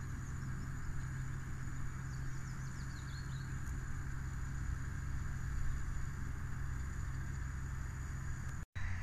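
Massey Ferguson 6465 tractor running a Vicon RF 2235 round baler, a steady low engine hum with no change in pitch. A few faint high chirps sound about two to three seconds in, and the sound cuts out briefly near the end.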